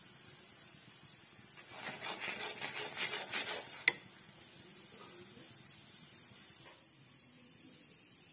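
Metal spatula stirring and scraping bubbling jaggery syrup in a metal pan, with one sharp clink of spatula on pan about four seconds in, then a faint steady sizzle.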